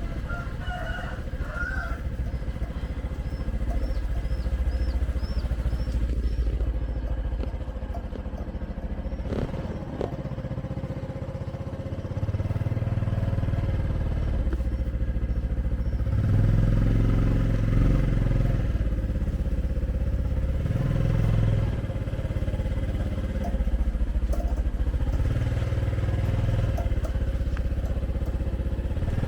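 Motorbike engine and street traffic running steadily, with a heavy low rumble that swells and fades repeatedly in the second half.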